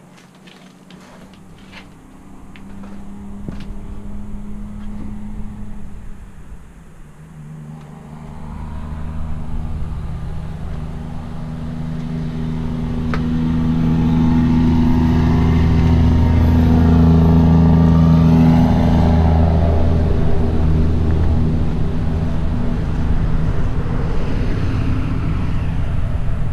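An engine hum swells over several seconds to a loud, steady drone with a sweeping, phasing tone, after a few light clicks near the start.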